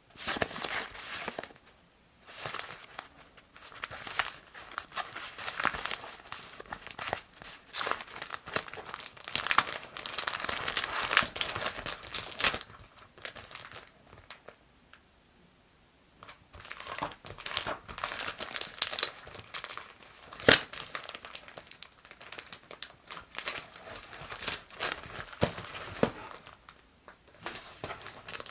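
Paper and sticker materials being handled close up: irregular rustling and crinkling with small crisp clicks and taps, pausing briefly a couple of times.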